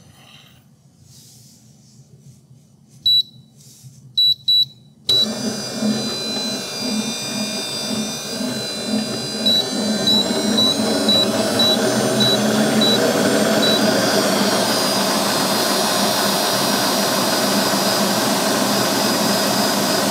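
Four short high beeps, then a stand mixer's motor starts suddenly about five seconds in and runs steadily, its wire whisk whipping heavy cream. A high whine climbs in pitch for a few seconds as it comes up to speed; the mixer is quiet-sounding.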